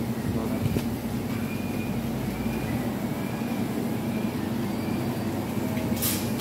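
Steady mechanical hum of restaurant kitchen fans, with a faint high squeak repeating a little more than once a second.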